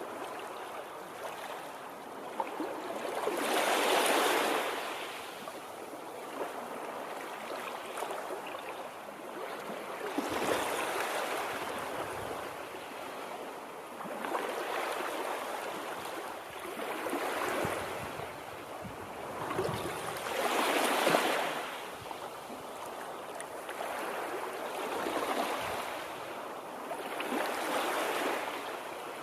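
Water rushing, swelling and easing in surges every few seconds.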